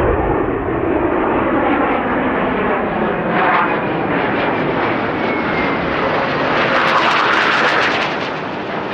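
Jet engines of a formation of four fighter jets passing overhead: a continuous roar that grows brighter as they come closer, with a crackling rasp a little after the middle.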